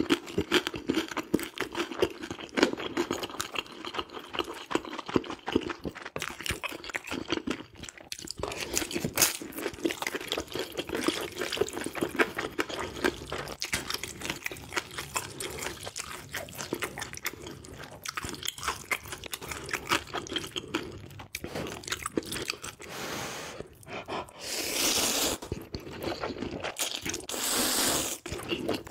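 A person eating close to the microphone: chewing a mouthful of fried dumpling and noodles, with dense wet clicks and smacks. Near the end come two long slurps of ramen noodles.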